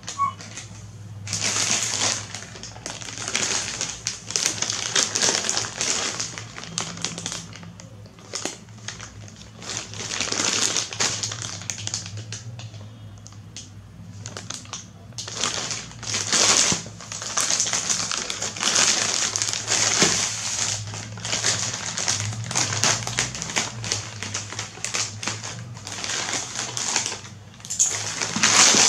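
Plastic courier mailer bag crinkling and rustling in irregular stretches as it is handled and turned over, over a faint steady low hum.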